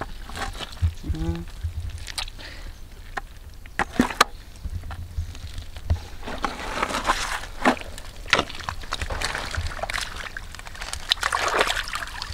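Shallow muddy water sloshing and splashing as hands grope through it, in patches, with a few sharp knocks a couple of seconds in.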